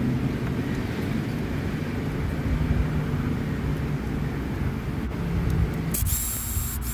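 A steady low mechanical hum under a rumbling background noise. It changes abruptly about six seconds in, where the rumble thins and a faint high tone appears.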